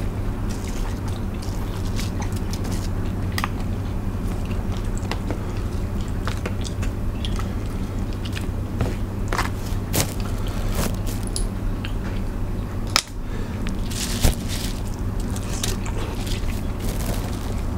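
A person eating crab and mixed seafood by hand: shells cracking and snapping, with chewing and wet squishing, in many scattered clicks over a steady low hum.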